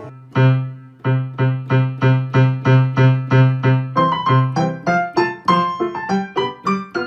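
Background music: a keyboard playing a bouncy run of short, detached notes, about three a second, over a repeated low note.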